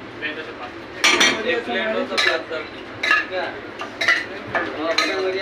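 Steel spoon and ladle clinking and clanking against steel pots and tumblers while toppings are spooned out, a sharp ringing clank about once a second.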